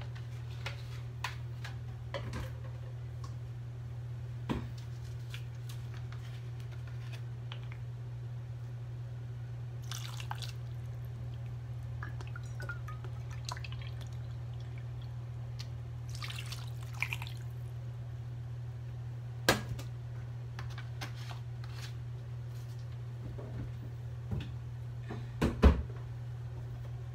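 Vinegar poured from a bottle into a metal measuring cup and over pieces of fish in a pot, in two short pours about ten and sixteen seconds in, with light clicks of the cup and bottle. Two sharper knocks follow, the louder one near the end, over a steady low hum.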